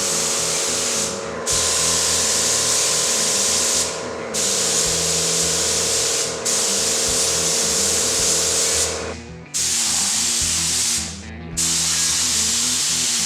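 Air-fed paint spray gun hissing in long passes as a coat of primer-sealer goes onto the toy truck's metal parts. The trigger is let off briefly about five times, each time for a fraction of a second.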